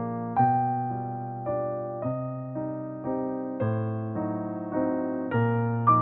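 Background music: a gentle electric piano playing chords, a new chord struck about every half second and fading.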